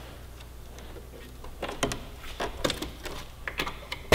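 Plastic motorcycle trim panels and their clips being handled and pried loose: a run of sharp clicks and knocks that starts about a second and a half in, the loudest right at the end.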